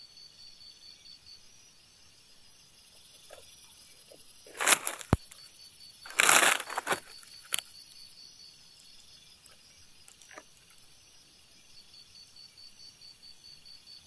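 Insects chirping steadily, with a few short bursts of rustling and sharp snaps of dry leaves and twigs between about five and eight seconds in, the loudest rustle around six to seven seconds.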